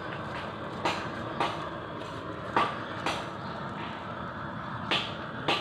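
Gas blowtorch burning with a steady roar against a goat's skin, singeing off the hair, while a knife scrapes the charred hair away in about six short, sharp strokes.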